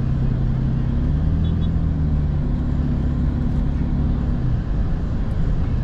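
Toyota pickup truck driving at a steady speed, heard from inside the cab: a steady low engine hum over tyre and road noise.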